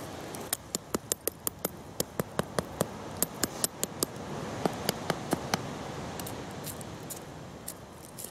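Machete blade knocking on a fire-charred coconut shell to crack it open. There are about twenty sharp knocks in quick runs, three to four a second, stopping about five seconds in.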